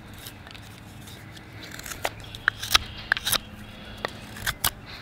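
Beavercraft sloyd knife whittling a green pine spoon blank: a string of short, irregular scraping cuts and clicks as the blade takes small chunks at a time.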